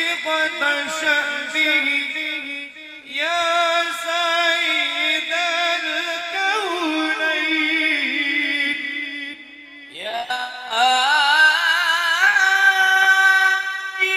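A male voice sings Arabic suluk, a slow melismatic vocal improvisation, in long phrases with wavering, ornamented pitch. There are short breath breaks about 3 seconds and 10 seconds in. The final phrase is held high and loud.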